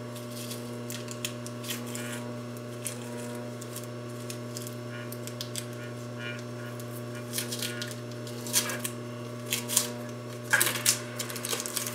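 Hands peeling tape off a twisted cord trim and handling the fabric: scattered soft rustles and crackles, louder near the end, over a steady low hum.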